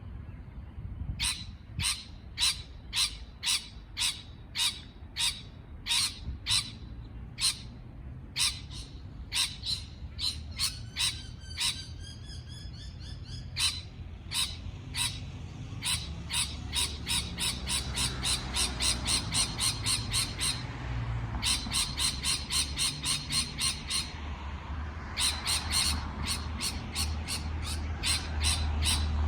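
Parrot calling in a long run of short, sharp calls, at first one or two a second, later quicker runs of three or four a second broken by short pauses, with a few gliding whistled notes in the middle. A low rumble builds near the end.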